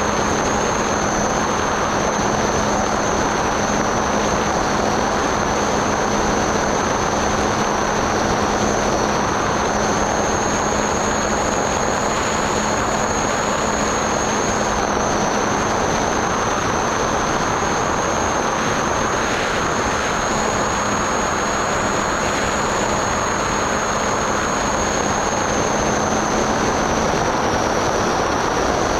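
Skyhunter RC plane's electric motor and pusher propeller running steadily in flight, heard through the onboard camera: a constant rushing drone with a high whine that wavers slightly in pitch.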